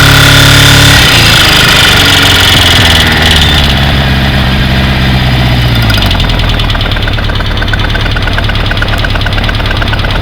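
Kawasaki GPZ550's air-cooled inline-four engine held at high revs for about a second, then dropping back gradually to idle over several seconds. Once it settles at idle, a fast, even ticking clack runs through it. This is the clacking fault that began after a head gasket change and that new rocker timing did not cure; the owner suspects the connecting rods.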